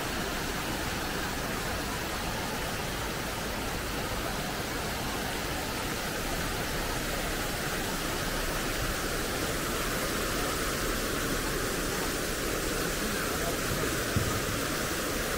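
Steady splashing of a plaza fountain's water jets, with one short knock near the end.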